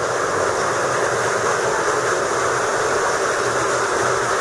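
Waterfall pouring into the sea inside a sea cave, a steady rushing splash.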